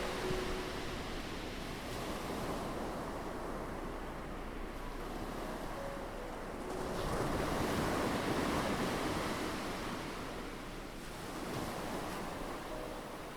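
Ocean waves washing onto a shore in a steady hiss. One swell builds about halfway through and then recedes.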